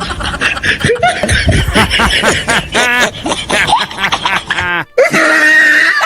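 People laughing and snickering in quick bursts, broken by a short cut about five seconds in, after which laughter goes on over a steady tone.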